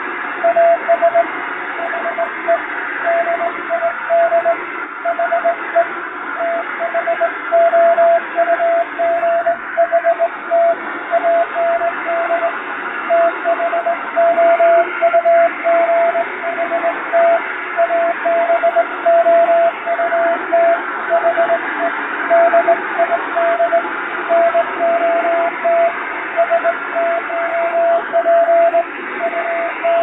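Morse code keyed by hand on a straight key, heard as a radio telegraph signal: a single steady beep tone switching on and off in dots and dashes over a constant band of shortwave receiver hiss, with noise and fading added. The code spells out English plain-language text.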